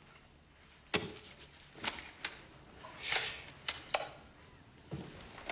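Scattered sharp clicks and knocks of objects being handled, with a short rustle about three seconds in.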